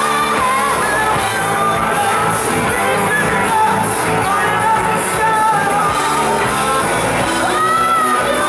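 Live band playing loudly: electric guitars with a singing voice over them, the melody gliding up and down.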